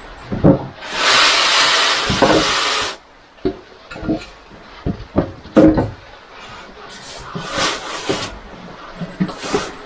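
A loud hiss lasting about two seconds, starting about a second in, then a run of scattered knocks and clatter.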